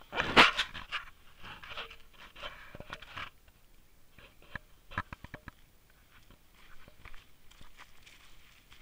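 Heavy panting breaths close to the microphone, loudest in the first second and fading out after about three seconds, followed by scattered crunching footsteps on dry leaves and stones.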